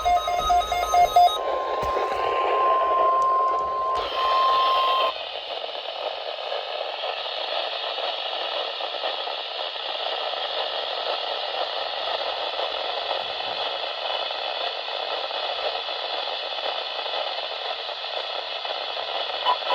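Weather radio receiver: a steady single alert tone near 1 kHz for about four seconds, then a steady hiss of radio static with no voice for the rest.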